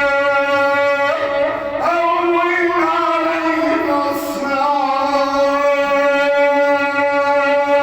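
A man chanting an Arabic supplication (du'a) in a melodic, melismatic style: long held notes broken by ornamented turns in pitch.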